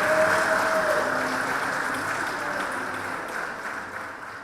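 Audience applauding, gradually fading away.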